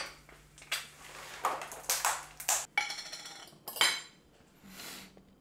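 Kitchen clatter: plates, pans and metal utensils knocking and clinking in a run of short separate strikes, a couple of them ringing briefly, followed by a softer scrape.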